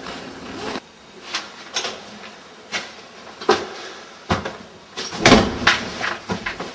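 Knocks and clicks from an apartment's front door and its lock as someone comes in, the loudest, the door shutting, a little past five seconds in.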